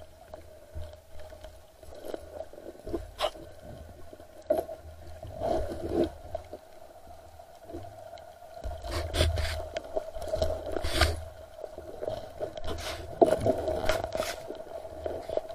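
Muffled knocks, scrapes and low water rumbles heard through an underwater camera, irregular and busiest in the second half, over a steady faint hum.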